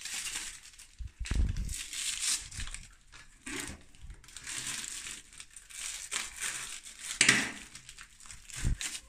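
Small paper ingredient sachets crinkled and torn open by hand, in irregular rustles with a few louder crackles, the loudest about seven seconds in.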